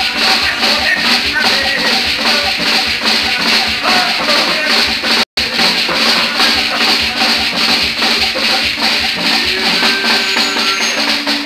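Terecô ritual music: steady drumming with maracas and chanted singing. The sound drops out completely for an instant about five seconds in.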